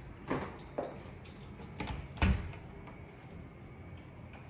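A few short, irregular knocks and thuds, the last and loudest about two seconds in, over faint low room noise.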